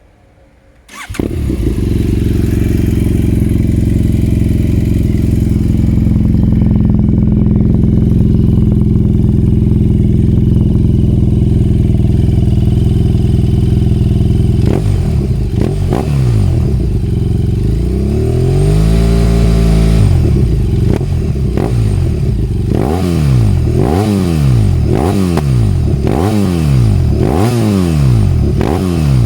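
2018 BMW F800R's parallel-twin engine, breathing through a Dominator HP1 exhaust with the dB-killer removed, starts about a second in and idles steadily. It is then revved: a few quick blips, one longer held rev, and a run of sharp throttle blips about one a second near the end.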